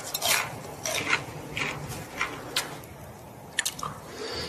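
Close-miked sounds of handling and eating crispy fried chicken: a string of short, irregular crunches and wet smacks.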